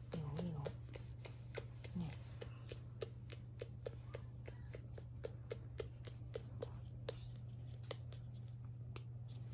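Fast, even run of light clicks or taps, about four to five a second, over a steady low hum, after a brief murmuring voice at the start.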